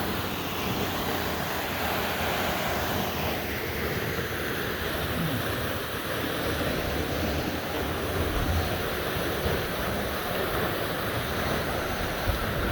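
Powerful waterfall pouring down, a steady, loud rushing of water, with wind buffeting the microphone.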